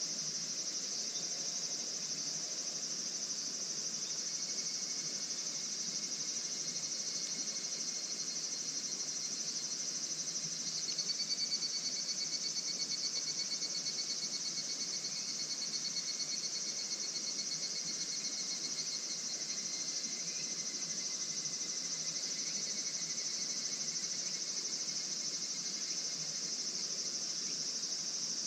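Chorus of crickets or similar insects trilling steadily. A nearer, rapidly pulsing trill starts a little over a third of the way in and runs for several seconds.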